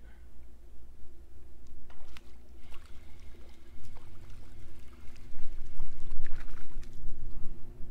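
A hooked crappie being reeled up to the boat on a spinning rod: scattered light ticks from the reel and line, with water splashing and trickling that grows louder from about five seconds in as the fish nears the surface. A steady low hum runs underneath.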